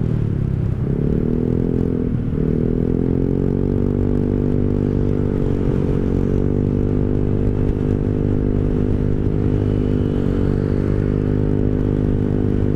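Rusi Rapid 150 scooter's single-cylinder engine running through an aftermarket full-system exhaust with the silencer insert removed, at a steady riding speed with a full, bassy exhaust note. The revs dip briefly and climb back about a second in, then hold steady.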